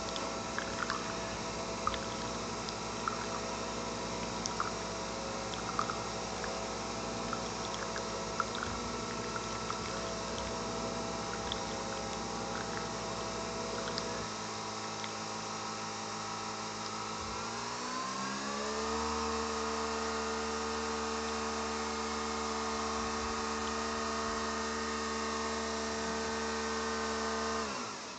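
Nespresso VertuoPlus capsule coffee machine brewing: a steady pump hum with small ticks and gurgles. About 18 seconds in, a rising whine as the capsule spins up, which then holds at a steady pitch until it stops shortly before the end.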